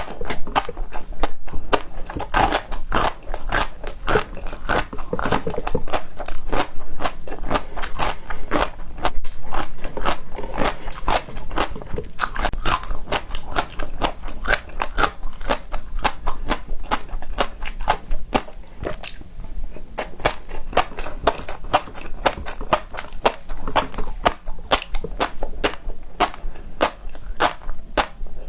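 Close-miked eating: a person biting and chewing crunchy food, a dense run of sharp crackles and crunches with wet chewing between them.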